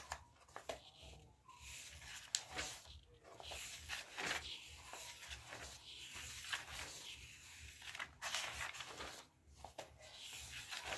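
Pages of a thick paperback book being turned by hand: a series of brief paper rustles and swishes, one every second or two.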